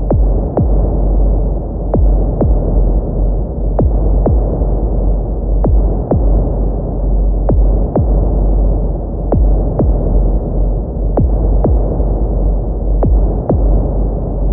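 Heartbeat sound effect: slow double beats, lub-dub, repeating about every two seconds over a steady low rumbling drone.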